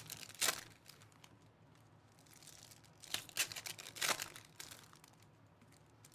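Trading card pack wrappers crinkling and tearing as packs are ripped open. Short rustles come at the start and about half a second in, then a longer cluster around three to four seconds in.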